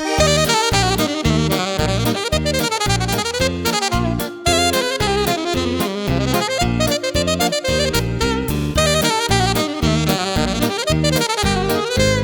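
Background jazz music: a saxophone melody over piano and a steady bass line.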